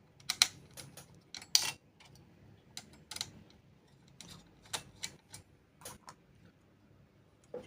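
Irregular sharp clicks and taps from small hard parts and tools being handled while a mini PC is taken apart, about a dozen in all. The two loudest knocks come in the first two seconds.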